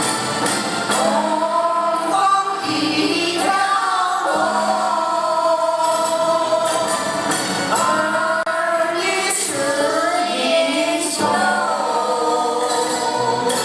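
A group of children singing a song together in unison into microphones, with long held notes and slides between them.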